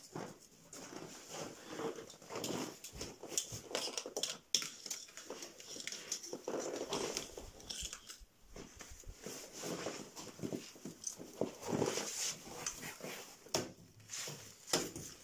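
Irregular hand-work noises: rustling, clinks and knocks as someone handles gear at a chained tractor tyre and hanging cables, with no engine running.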